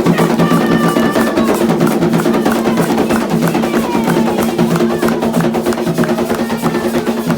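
Candomblé ritual drumming on atabaque hand drums: a fast, steady, dense rhythm of drum strokes.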